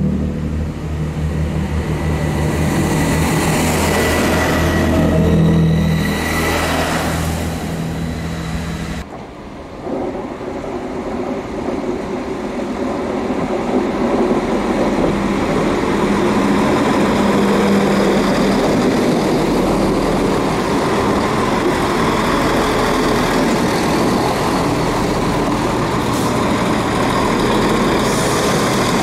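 Diesel train engine running with a steady low throb. About nine seconds in, the sound breaks off abruptly and gives way to a steady, noisier rumble.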